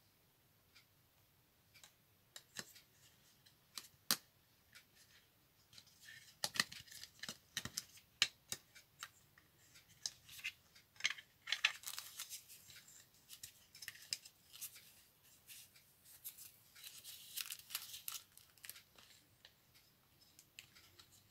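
Faint small plastic clicks and crinkly rustling from hands working the parts of a clear plastic diamond-painting stylus. The clicks are scattered at first and turn into busy clicking and rustling through the middle.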